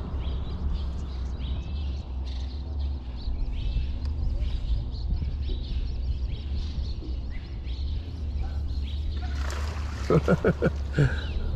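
Steady low wind rumble on the microphone, with faint bird calls above it. About ten seconds in, a man's voice breaks in briefly.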